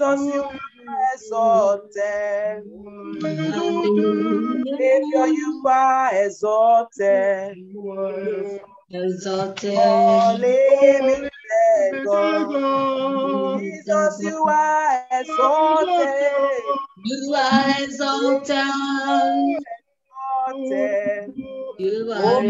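Worship singing by voices heard through a video call, with long held and sliding notes.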